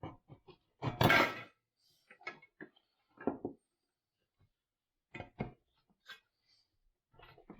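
Irregular metallic clanks and rattles of sheet metal and hand tools being handled, the loudest clatter about a second in.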